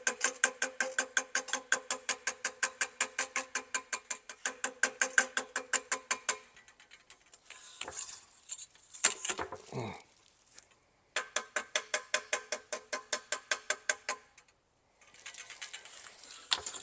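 Rapid, even light hammer taps on a brass trombone slide tube supported on a dent rod, about six taps a second, each with a short metallic ring: the collapsed tube being tapped down to shape. The tapping runs for about six seconds, stops for a scraping sound in the middle, then starts again for about three seconds.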